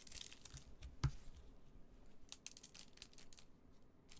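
Scissors cutting open a shiny trading-card pack, with crinkling of the wrapper, a dull knock about a second in, then scattered light crinkles and clicks as the pack is handled.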